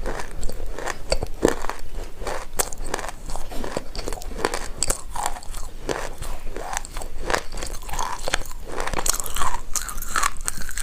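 Baked loess clay being bitten and chewed, a continuous run of irregular sharp crunches and crackles.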